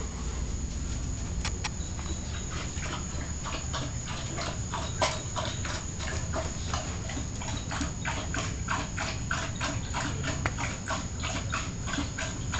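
A quick, irregular run of light clicks and taps, sparse at first and several a second from about two seconds in, over the steady high chirring of crickets.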